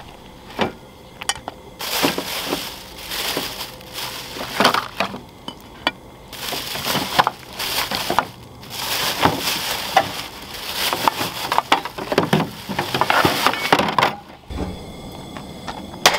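Hands rummaging through a plastic storage tote: plastic bags and paper crinkling and rustling in uneven bursts, with small items clinking and knocking among them. Near the end this gives way to a steady low hum.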